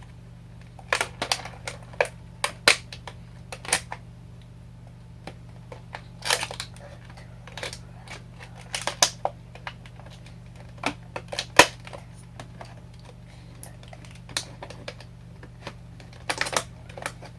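Irregular clicks, taps and crinkles of plastic and cardboard toy packaging being handled and pulled open, over a low steady hum.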